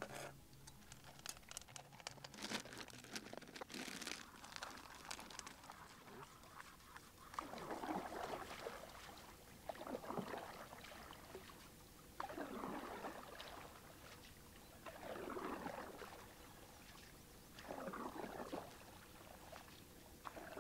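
Canoe paddle strokes in water, a swish about every two and a half seconds, with drips and small clicks in the first few seconds.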